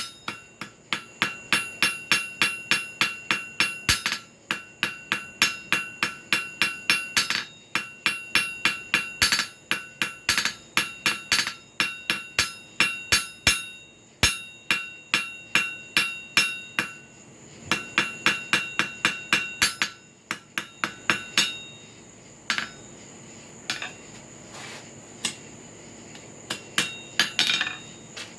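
Forging hammer striking a hot carbon-steel cut flooring nail on an anvil, in a fast, even rhythm of about three blows a second, each blow ringing. About two-thirds of the way through, the blows break into shorter runs with pauses, then a few scattered strikes.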